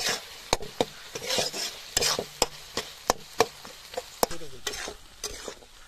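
A metal spatula stirring and scraping a thick masala in an aluminium kadai, with sharp irregular clinks of the spatula against the pan. The masala sizzles underneath.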